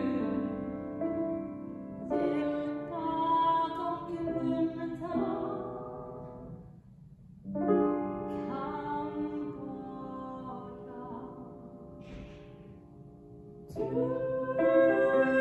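A woman singing solo and accompanying herself on a grand piano. The phrases break off briefly about halfway through, then come back louder near the end.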